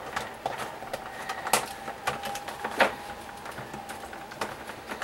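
Scattered light clicks and taps of hard plastic toy parts and packaging being handled, with two sharper clicks about a second and a half and three seconds in.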